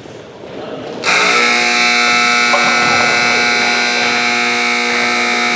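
Gym scoreboard horn sounding one long, loud, steady blast that starts suddenly about a second in and holds for about five seconds; near the game's end this is the final buzzer.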